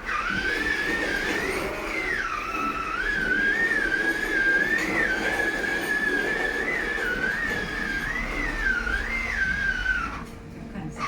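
A simple high, thin electronic tune from a toddler's electric ride-on toy car, one wavering melody line that stops briefly near the end.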